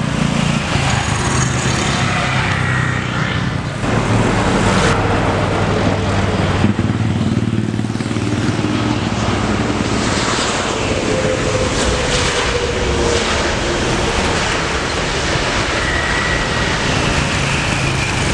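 Jet airliners' engines on landing approach: a steady rumble with a whine. About five seconds in, the sound cuts from an Airbus A320 to an Airbus A330.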